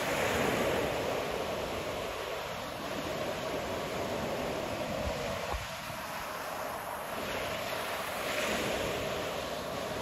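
Ocean surf breaking and washing up a beach: a steady rush that swells about half a second in and again near the end.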